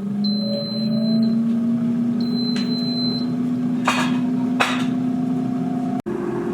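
Air fryer running just after being started: a steady motor-and-fan hum that rises slightly in pitch as it spins up, with two clicks about four seconds in.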